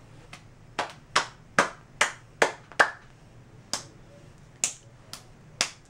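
Patty-cake claps between a person and a capuchin monkey: hands clapping together and palms slapping against the monkey's small hands. There is a quick run of six sharp claps, about two and a half a second, then three slower claps about a second apart.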